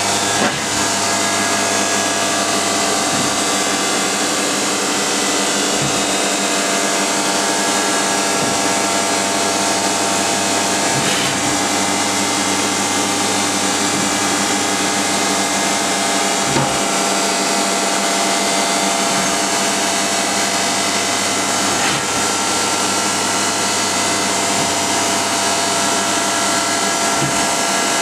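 Matsuura RA-1 CNC vertical machining center running: a steady whine of several tones over an even hiss, with a few faint knocks now and then.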